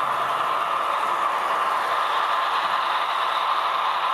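Model train rolling past on layout track: a steady rattling running noise.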